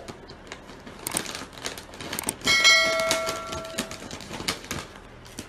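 Foil chip bag crinkling and crackling as a cat paws and noses into it. About two and a half seconds in, a bell-like ding from a 'subscribe' overlay effect rings for about a second and is the loudest sound.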